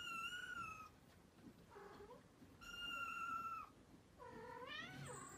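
Kittens mewing: three thin, high-pitched mews about a second long each, the last one rising in pitch, with a fainter short call between them.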